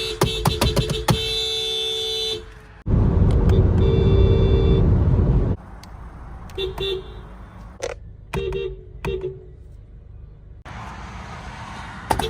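Honda car horns sounding: a steady honk with a few sharp clicks over it, stopping after about two seconds, then a second honk under a loud low rumble for about two and a half seconds, then several short toots.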